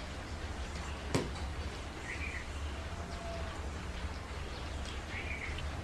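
A single sharp tap on a steel thali about a second in, over a steady low hum, with two faint short chirps later on.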